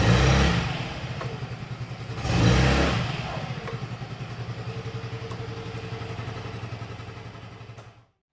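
Yamaha Mio Gear S scooter's 125cc single-cylinder engine revved twice, about two and a half seconds apart, then dropping back to a pulsing idle that fades out near the end.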